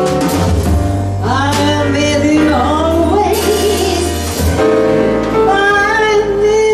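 Live jazz combo of double bass, piano and drums playing a ballad, with a voice singing the melody over it. The low bass notes drop out about two-thirds of the way through while the melody carries on.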